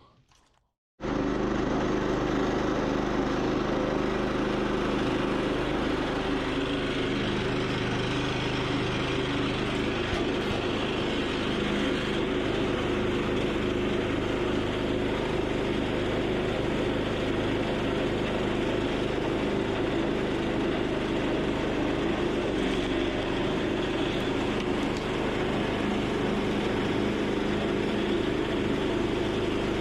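A vehicle engine running at a steady speed, starting abruptly about a second in and holding an even pitch and level throughout.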